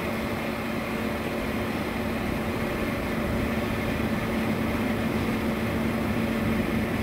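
Jet aerator running steadily: a constant mechanical hum under the rush of water churning and boiling at the surface.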